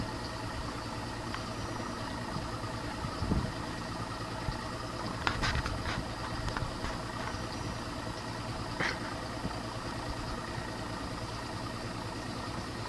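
An engine idling steadily, with a constant hum, and a couple of brief sharper sounds about five and nine seconds in.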